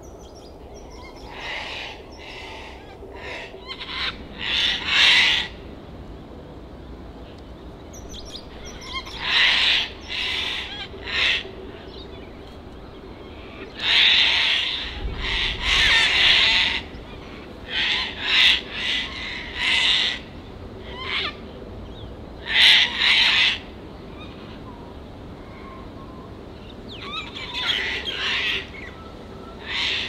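A flock of sulphur-crested cockatoos screeching: loud, harsh calls of a second or so each, coming in irregular clusters with quieter gaps between.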